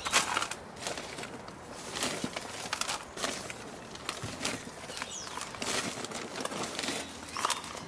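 Handfuls of moist potting soil being scooped up and dropped onto a plant's root ball in a plastic pot: repeated irregular crumbly rustling.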